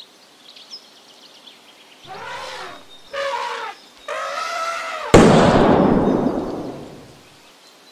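Three loud, drawn-out pitched calls, then about five seconds in a single sudden loud bang like a rifle shot, which dies away over about two seconds.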